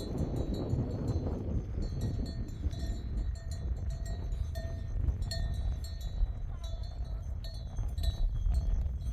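Bells on grazing sheep clinking and ringing irregularly as the flock moves, over wind rumbling on the microphone.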